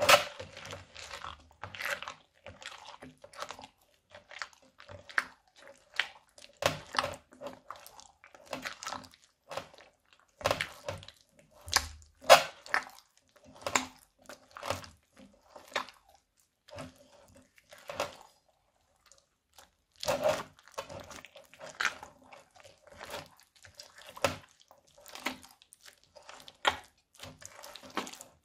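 Silicone spatula stirring and folding foam-bead crunchy slime in a bowl: a dense run of irregular crunchy clicks and pops as the beads are pressed, with a pause of about a second and a half about two-thirds of the way through.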